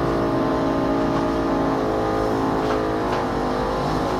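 A steady engine-like motor drone, many even tones holding level without rising or falling.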